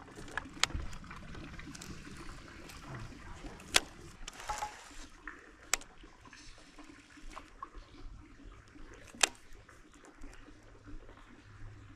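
Faint water lapping with a few sharp clicks and knocks scattered through it, the loudest about four, six and nine seconds in; a low steady hum comes in near the end.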